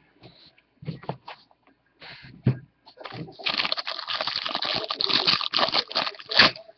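A few light knocks and taps, then from about three seconds in a loud, continuous crinkling of a plastic trading-card pack wrapper being torn open and pulled apart by hand.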